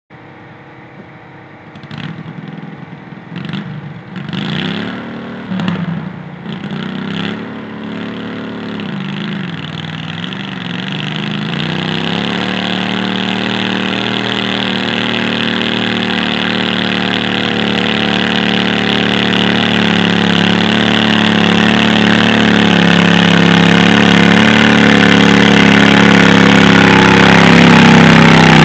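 Stock 20 hp garden tractor engine revved in several short bursts, then held at a steady high speed as it pulls a weight-transfer sled down the track, growing louder as it comes closer.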